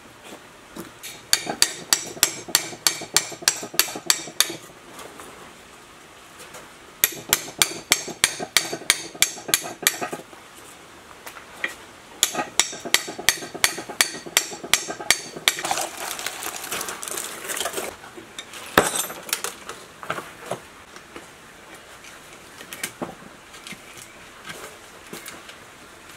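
Hammer blows on rusty steel pump parts during dismantling: three runs of quick, evenly spaced metallic strikes, about four a second, each lasting a few seconds. These are followed by scraping and clattering, one hard knock about two-thirds of the way through, and a few lighter knocks near the end.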